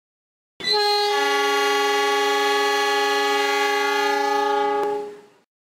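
Train air horn sounding one long steady chord of several tones. It starts suddenly, holds for about four and a half seconds, then fades out.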